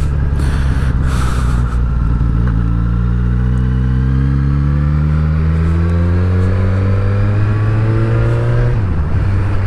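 2019 Suzuki Katana 1000's inline-four engine pulling the bike out of a roundabout, its revs rising in one long steady climb under acceleration. The revs drop sharply near the end.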